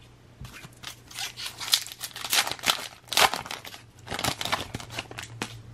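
A foil trading-card pack wrapper being torn open and crinkled by hand, in a run of irregular crackling tears lasting several seconds.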